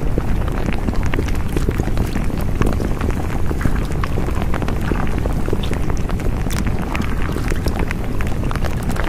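Loud, steady rumbling noise, heaviest in the low end, with scattered short crackles throughout.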